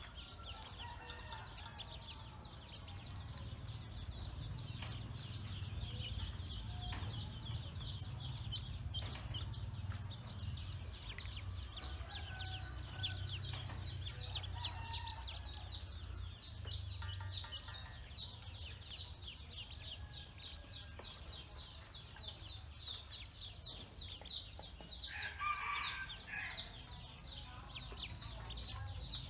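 A brood of Pekin ducklings peeping nonstop, many short high peeps a second, over a steady low rumble. A brief louder sound breaks in near the end.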